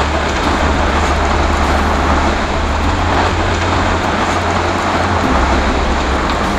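A room fire burning inside a full-scale test house: a steady low rumble with faint crackles.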